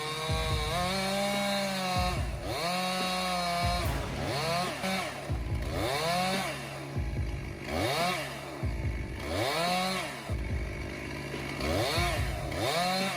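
Chainsaw engine revving up and dropping back again and again, about once a second.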